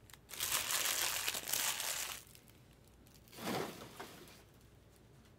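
Foil trading-card pack wrapper crinkling as it is handled and torn open, a dense crackle lasting about two seconds, followed by a shorter, lower rustle about three and a half seconds in.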